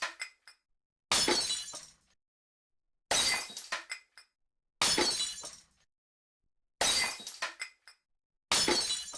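Glass smashing, five separate crashes about two seconds apart. Each is a sudden shatter that trails off within about a second into tinkling shards, with dead silence between.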